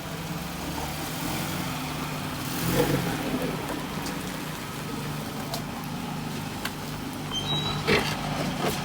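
Car engine running steadily at low revs, with two brief high beeps and a click near the end.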